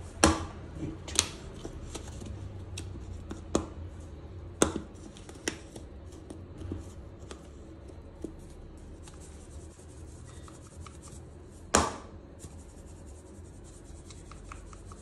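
Scattered sharp clicks and knocks of small objects being handled, about six in all, the loudest near the start and near the end, over a faint low steady hum.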